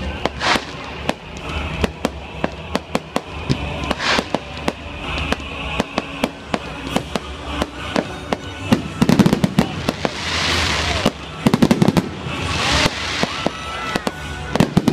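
A fireworks display: a steady run of sharp pops and crackles from bursting aerial shells, with heavier bursts about nine and twelve seconds in and a spell of hissing crackle between them.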